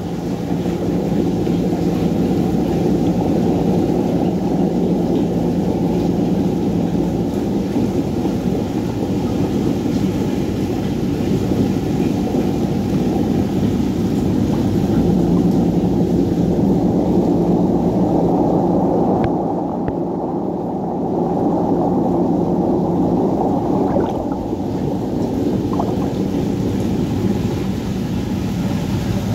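Steady, muffled underwater rumble of circulating water in a reef aquarium tank, with a low hum from the tank's pumps running under it.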